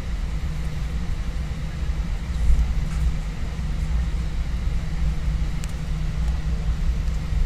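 Airbus A320 cabin noise while taxiing: a steady low rumble from the engines and rolling undercarriage, with a brief louder thump about two and a half seconds in.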